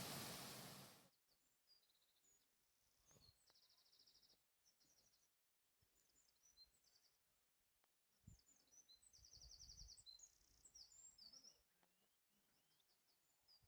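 Rushing waterfall noise that cuts off suddenly about a second in, followed by faint birdsong: scattered high chirps and quick trilled phrases, with a few brief low rumbles.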